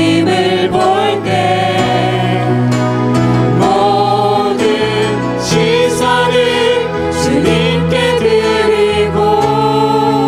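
Church praise team singing a worship song together into microphones over acoustic guitar and sustained band chords that change every second or two.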